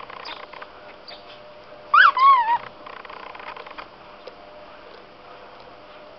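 A dog's plush squeaky toy squeaks twice in quick succession about two seconds in as the dog chews it: a short rising squeak, then a wavering squeak that falls in pitch. Soft rustles and clicks of the dog mouthing the toy come before.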